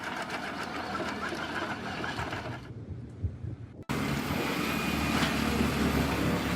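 Heavy wood-grinding machinery running steadily. About four seconds in the sound cuts abruptly to another machine running louder, with a strong low hum.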